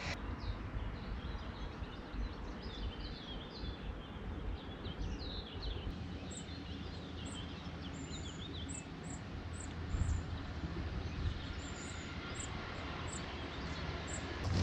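Birds singing and chirping in the open, over a steady low background rumble. Through the middle a run of short, very high chirps repeats about once or twice a second.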